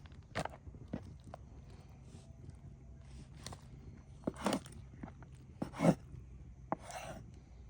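Irregular clicks, knocks and scrapes of things being handled, the loudest knock about six seconds in.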